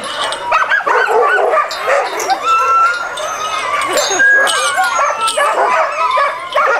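A pack of sled dogs barking, yipping and whining together, many overlapping calls with a few drawn-out whines among them.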